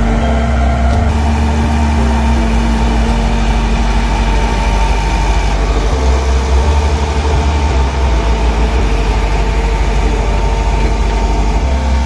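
Diesel engine of a Shantui crawler bulldozer running steadily while the machine pushes wet sand with its blade.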